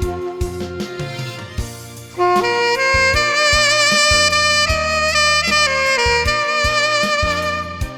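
Saxophone playing a slow ballad melody with vibrato over an accompaniment of bass and drums. A long held note fades about two seconds in, then a new phrase begins.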